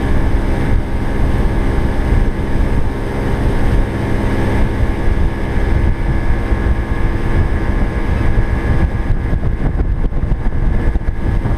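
Aquasport fishing boat's motor running steadily while the boat is underway, with wind rumbling on the microphone.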